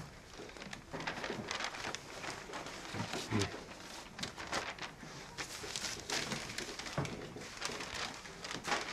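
Sheets of drawing paper rustling and flapping as they are handled, with a few brief, faint voices.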